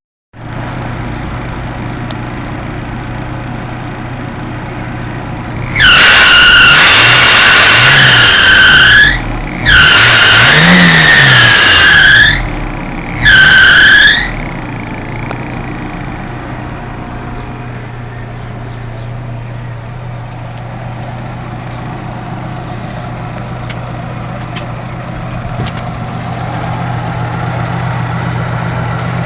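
Fiat Seicento engine running, with the alternator's fan-belt drive letting out three loud, high screeches between about six and fourteen seconds in, the pitch sagging and recovering in each, then running steadily without the screech. The owner has tensioned the belt without curing it and wonders whether the alternator bearings are shot.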